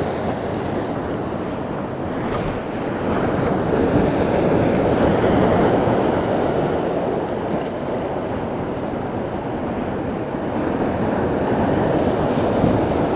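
Sea surf breaking and washing over shoreline boulders, a continuous rushing wash that swells a few seconds in and again near the end.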